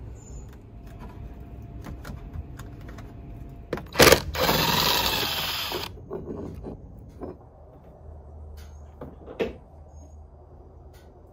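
Ryobi cordless drill with a socket bit spinning a bolt for about a second and a half, starting with a sharp click and a bending whir, among light clicks and knocks of tool handling.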